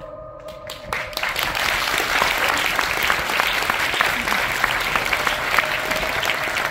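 Theatre audience applauding: a few scattered claps, then dense, steady clapping from about a second in. A held musical note fades out as the applause starts.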